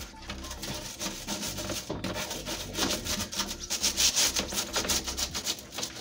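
Small scrubbing brush rubbing over the plastic frame and glass of a refrigerator shelf in quick, repeated back-and-forth strokes, working grime out of the frame's grooves.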